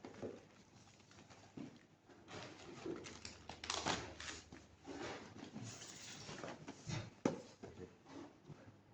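Faint handling sounds of unboxed parts and packaging: scattered soft rustles and light taps, with one sharper click about seven seconds in.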